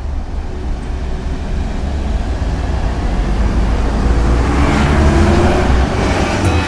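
A deep rumbling whoosh swells to a peak about five seconds in, then cuts off abruptly.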